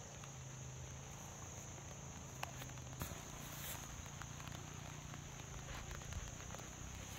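Faint, steady, high-pitched insect chirring over a low hum, with a few light clicks about two and a half to three seconds in.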